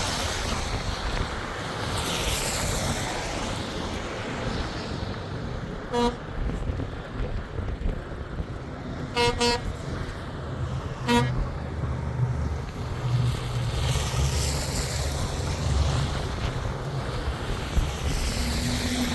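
A vehicle horn is tooted in short beeps: one, then a quick double, then one more. Underneath there is a steady rush of vehicle and road noise with a low engine rumble.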